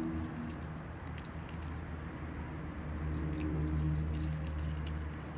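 Four-month-old German Shepherd puppy growling low over a raw chicken drumstick as it chews. The growl eases about half a second in and swells again about two and a half seconds in, over faint wet clicks of chewing.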